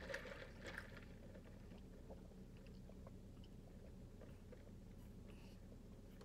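Near silence inside a car cabin: a low steady hum, with a few faint small clicks in the first second.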